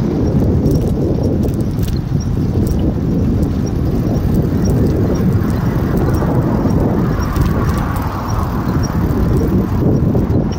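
Wind buffeting the microphone and tyre rumble from a bicycle rolling along city pavement, with scattered light knocks and rattles from bumps and a faint regular ticking.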